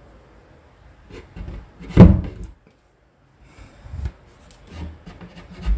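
Knocks and rubbing on a plywood kitchen cabinet as it is handled. One sharp knock about two seconds in is the loudest, with several lighter knocks and scrapes around it.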